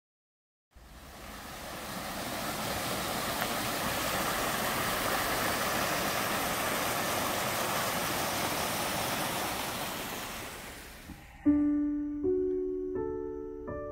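A small mountain stream splashing over rocks, fading in and then out. Near the end a digital piano begins a slow melody, with about four notes and chords struck one after another.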